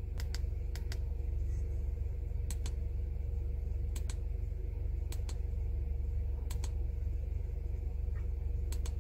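Button clicks on a handheld ANCEL FX3000 scan tool as its menus are paged through, coming in quick pairs about seven times, over a steady low hum.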